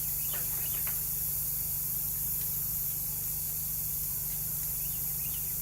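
Air hissing steadily out of a nail hole in a truck tire's tread, the hole just opened up with a spiral reaming tool so it leaks faster.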